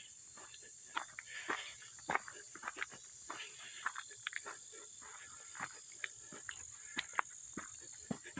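Insects in the trees keep up a steady high-pitched drone, with the irregular crunch and crackle of footsteps on the trail.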